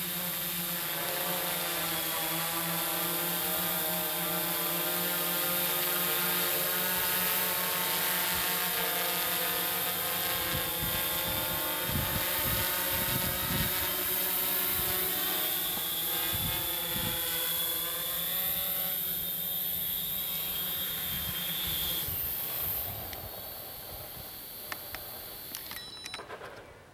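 Tarot 680 Pro hexacopter's six electric motors and propellers buzzing in flight, with a pitch that wavers as they adjust. From about three quarters of the way in the buzz falls away as the hexacopter lands, and the motors wind down to near stillness at the end.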